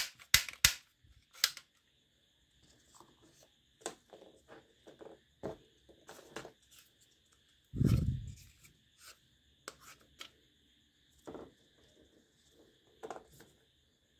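Plastic clicks and light rattling from handling an X-Treme Shot toy revolver and pushing foam darts into its cylinder, with a few sharp clicks in the first second and one louder low thud about eight seconds in.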